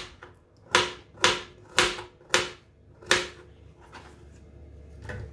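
Kitchen knife slicing through a piece of fresh ginger onto a plastic cutting board: five sharp knocks about half a second apart, one per slice.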